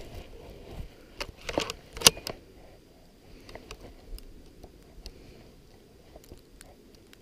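Scattered small metallic clicks and rattles from handling the action of a single-shot Mossberg .22 rifle while reloading it with a .22 Short cartridge, the sharpest click about two seconds in.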